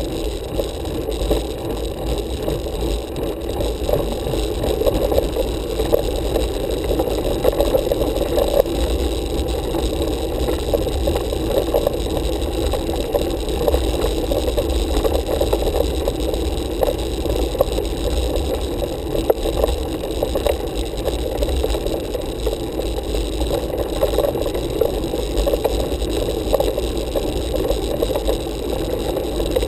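Road bicycle climbing on asphalt, heard through a handlebar-mounted camera: a steady rolling rumble with light, irregular rattling.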